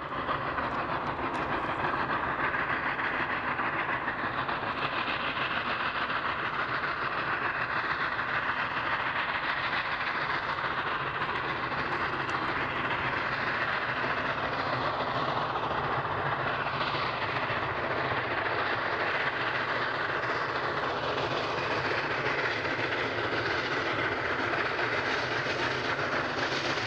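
Union Pacific steam locomotive working a long passenger train, a steady, dense sound of its exhaust and the cars rolling on the rails.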